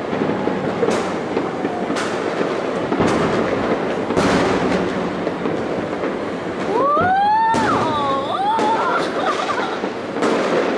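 Fireworks display: shells bursting with sharp bangs about every second or two over a continuous crackle. Near the middle comes a whistle-like tone that glides up and down twice.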